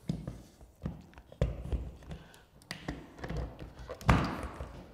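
Short knocks and clicks of a Legrand electrical wall socket being handled and pressed by hand into its flush wall box. The loudest knock comes about four seconds in.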